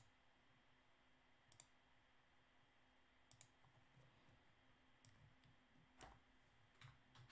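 Faint computer mouse clicks against near silence: four sharp clicks about every second and a half, then a duller knock about six seconds in.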